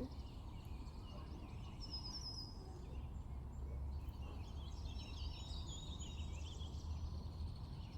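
Birds chirping in the background, in two short spells, over a steady low hum.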